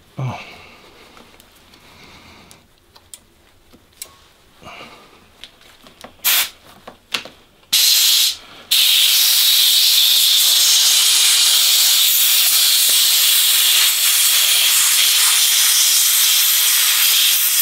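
Compressed air hissing, blown under a motorcycle handlebar grip to lift it off the throttle tube: a few short blasts, then one long steady blast from about halfway through.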